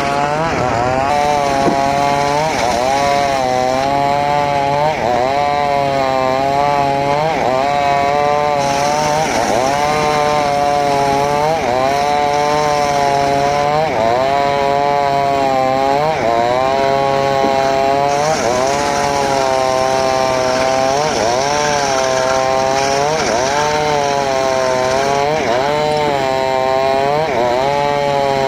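Home-built circular saw cutting mahogany, its whine sagging in pitch as the blade bites into the wood and climbing back, over and over about every second and a half.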